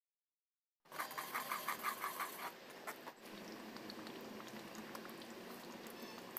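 Thick tamarind paste for puliodharai bubbling and spluttering in oil in a pan, a steady low crackle, with the oil separated out around the paste. Before it, about a second in, a quick regular run of short squeaky clicks, about eight a second.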